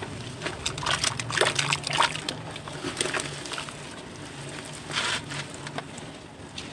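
Hands squeezing and crumbling soaked cement in a basin of water, sloshing and splashing with short wet crackles. The sound is busiest in the first couple of seconds, with another burst about five seconds in.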